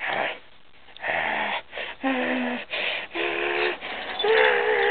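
Pit bull terrier mix growling in play, with rough growls that turn into long wavering whines and yowls. There is a short sharp burst at the start, then a run of growl-whines with the longest near the end.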